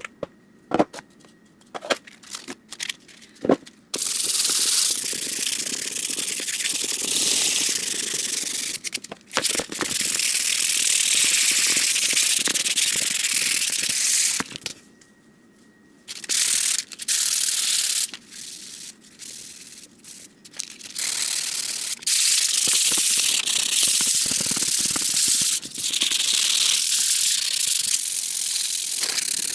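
220-grit sandpaper rubbing over a helmet mask in long stretches of steady sanding, broken by short pauses. A few sharp clicks and knocks of handling come first.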